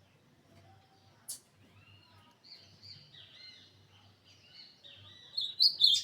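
Ultramarine grosbeak (azulão) singing: soft, quiet warbled notes that build up, breaking into a loud run of fast, high song near the end. A single sharp click comes a little over a second in.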